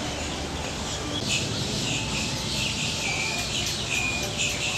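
Many small birds chirping over one another in quick, short chirps, with a steady low background noise underneath.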